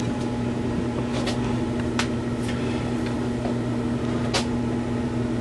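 A steady low machine hum, with four or five faint, short clicks of handling.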